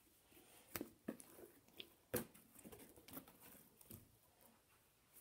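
Faint, irregular soft taps of a slime-covered balloon ball being handled and tapped against a countertop, several over a few seconds, the clearest about two seconds in.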